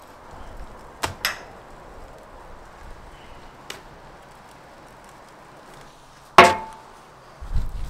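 Sharp chopping knocks on a wooden table as bison meat is cut up: two quick ones about a second in, a faint tap near four seconds, and a louder one with a short ring a little past six seconds. Low handling rumble near the end.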